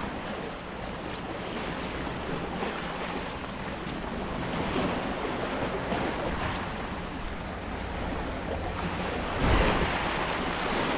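Sea waves washing in steadily, with wind buffeting the microphone. One wave surges louder about nine and a half seconds in.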